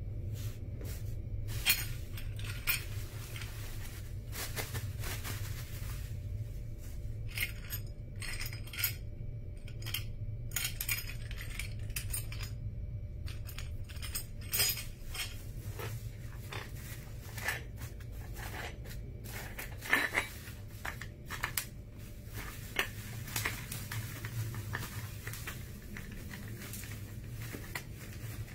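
Bubble wrap and plastic packaging rustling and crackling in irregular bursts as bicycle rear-seat parts are unwrapped, with occasional clicks and clinks as the parts are handled. A steady low hum runs underneath.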